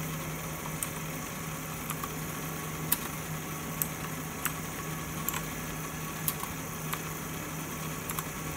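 Scattered sharp clicks of keyboard keys being pressed, about a dozen spread irregularly, over a steady low hum.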